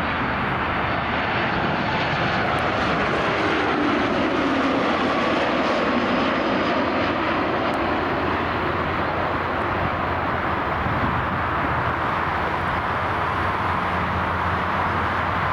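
Jet airliner engines passing: a steady rushing roar with a faint, slowly gliding whine, loudest about four to six seconds in.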